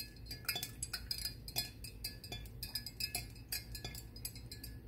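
A stirring rod clinks and taps against the inside of a glass jar as a liquid mixture is stirred: many light, irregular clinks, several a second.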